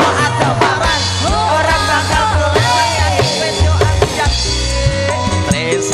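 Live Javanese band music with gamelan instruments and keyboard, a singer's voice gliding over a steady bass line and drum strokes.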